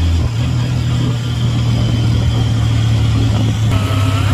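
Motorcycle engine of a tricycle running while underway, heard from inside the sidecar with road and wind noise; the engine note steps up in pitch shortly after the start.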